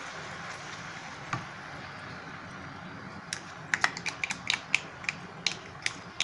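Hot caramel sizzling with a steady hiss as cream is stirred in. From about three seconds in, a quick, irregular run of sharp clicks and taps: a steel spoon scraping and knocking cream out of a plastic measuring cup over the pan.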